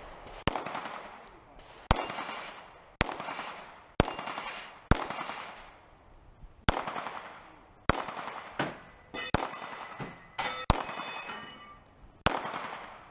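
Pistol shots during a competition stage: about a dozen single shots, unevenly spaced roughly a second or two apart, each with a short echo. A metallic ringing lingers after several shots in the middle.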